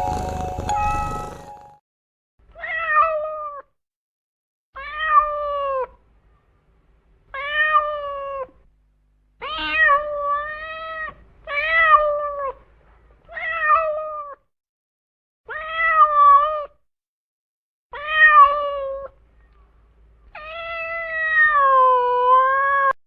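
A cat meowing over and over: nine drawn-out meows about two seconds apart, each dropping in pitch at the end, and the last one longer with a wavering pitch. A few steady musical tones fade out in the first two seconds.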